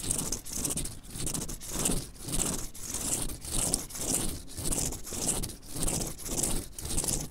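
Tip of a white cane scraping across an outdoor mat in even, repeated strokes, about two or three a second.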